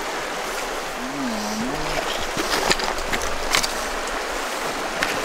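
Shallow river running steadily over rocks, with a few sharp clicks or splashes in the second half as a hooked trout is played on a fly rod.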